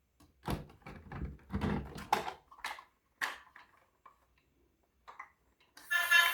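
Irregular knocks, rubs and clicks of toys and packaging being handled, densest in the first three seconds and then a few faint clicks. Near the end a melody starts.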